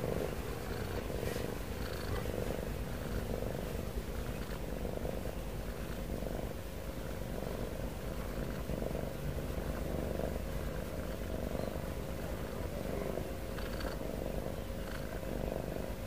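A sleeping cat breathing with a steady low rumble through its nose, the rumble swelling with each breath about every second and a half.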